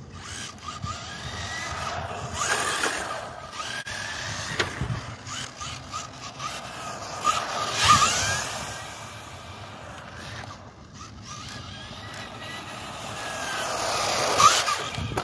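Kyosho Fazer MK2 RC touring car's brushed electric motor whining and its tyres hissing on rough asphalt as it speeds past. It is loudest about eight seconds in and again near the end, each pass with a short rising whine.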